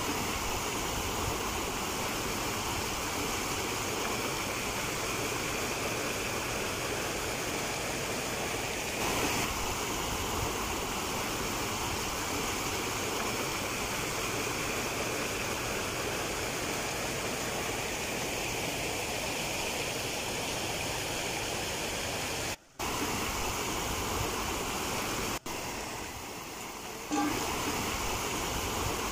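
Shallow river rapids rushing over rocks, a steady rushing of white water. It breaks off for an instant twice near the end.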